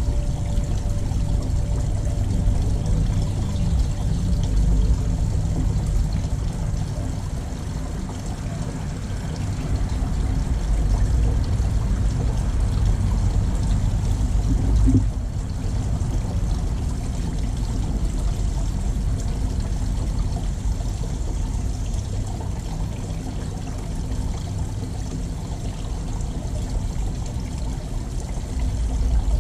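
Steady running water, pouring and trickling, with one brief louder knock about halfway through.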